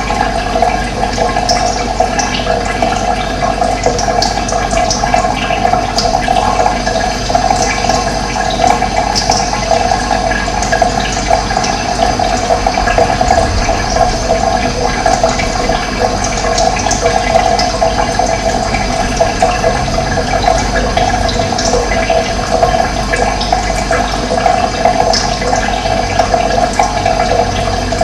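Steady rushing of running water, with small birds chirping briefly here and there above it.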